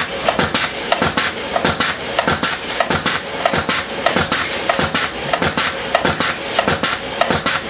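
Pneumatic cutter head of a servo feed-and-cut machine cycling rapidly. It gives a sharp snap about four times a second as it cuts the fed material to length.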